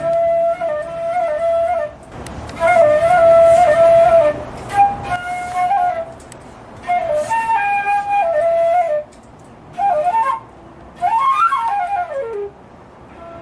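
Solo concert flute playing a melody in short phrases with brief pauses between them, ending with a quick run up in pitch and back down.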